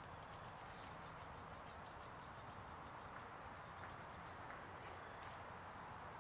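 American red squirrel gnawing a nut held in its paws: faint, rapid scraping clicks over a steady hiss.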